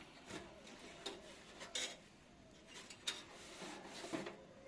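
Faint scattered clicks, light knocks and rubbing from handling the open desktop PC's metal cabinet, several separate small contacts about a second apart.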